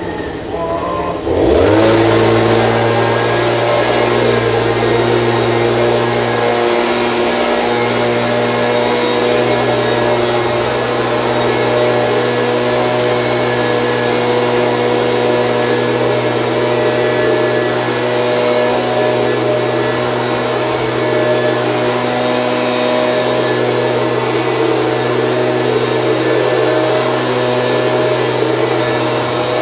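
Stihl BG 86C handheld leaf blower's small two-stroke engine running after a cold start. About a second and a half in, its pitch swoops up and it settles into a steady, slightly louder run at constant speed.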